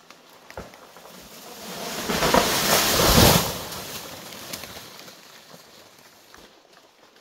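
A gust of wind through dry, hanging banana leaves, a rustling that swells over a couple of seconds and then dies away.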